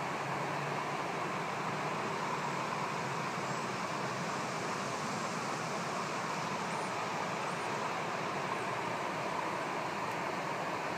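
Steady rush of a shallow river running over rocks and riffles below a low dam spillway.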